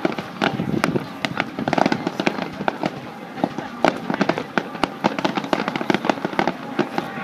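A fireworks display with shells bursting in a dense, irregular run of sharp pops and bangs, several a second.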